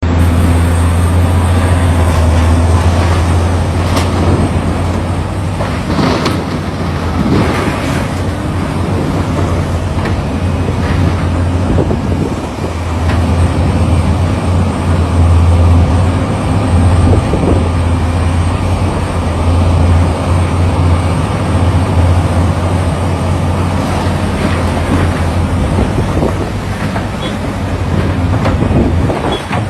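Excavator's diesel engine running steadily with a deep drone, with occasional metallic clanks and knocks from the machine working.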